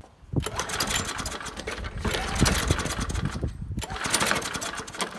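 Kohler engine of an Ariens walk-behind lawn mower firing up on the pull start and running, a loud, rapid, even beat, briefly dipping near the end. It runs now that the automatic choke's loose linkage rod is reconnected, though the owner suspects it may only be firing on leftover carb cleaner in the intake.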